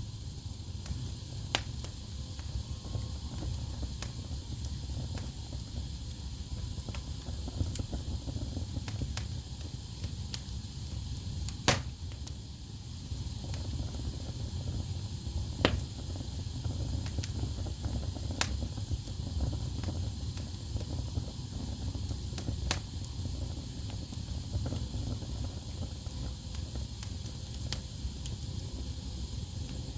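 Wood fire burning in a fireplace, crackling with a steady low rumble of flames and a soft hiss, with scattered sharp pops, two of them louder near the middle.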